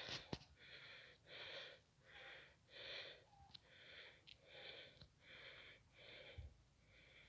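A person panting hard and fast, a soft breath in or out about every three-quarters of a second, winded from a climb up a hill.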